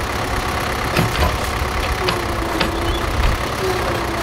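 Tractor backhoe's diesel engine running steadily, with a few sharp clinks and a faint whine that sags slightly in pitch twice.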